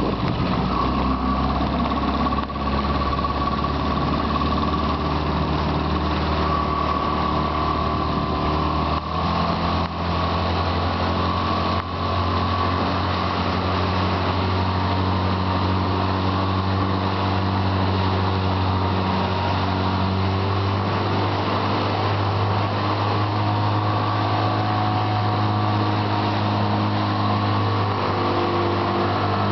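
Outboard motor of an aluminium Kazanka motorboat running under way. Its note steps up in pitch about nine seconds in, then holds steady.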